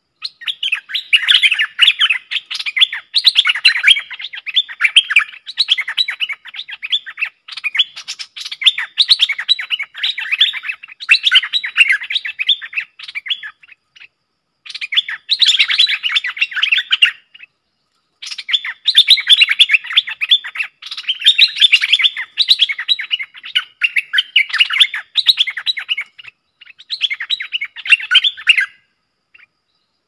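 Bulbuls singing in long runs of rapid, chattering phrases, a caged decoy bird and a wild one answering each other in a song duel. The song breaks off briefly a few times and stops shortly before the end.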